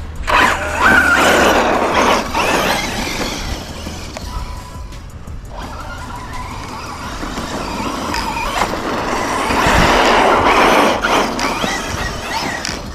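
Arrma Kraton 6S V6 RC monster truck's brushless motor running hard, with its whine rising and falling alongside tyre noise. There are two long bursts: one starting just after the beginning and another from about eight to eleven seconds in.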